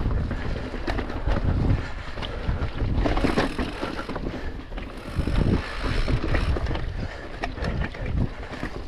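A mountain bike rolling fast down a dirt singletrack: tyre rumble and wind buffeting the microphone, with frequent knocks and rattles from the bike over bumps and roots.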